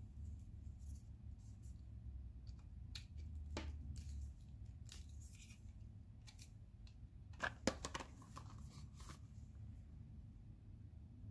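Light clicks and taps of hands handling a plastic camera battery charger and its cord, with two sharper clicks about seven and a half seconds in, over a low steady hum.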